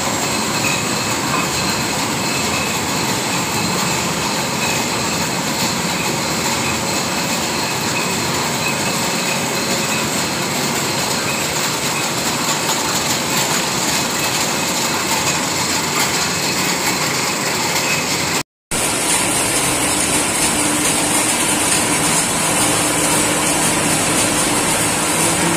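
Steady whirring hiss of a PP twine (sutli) making machine running, its rollers and winders turning, with a few steady whining tones in it. The sound drops out for an instant about three-quarters of the way through, then carries on with a slightly different tone.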